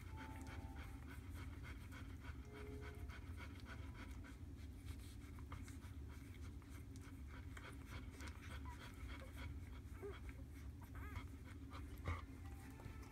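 Nursing golden retriever panting softly and rhythmically, a few breaths a second, over a low steady hum. One sharp knock near the end.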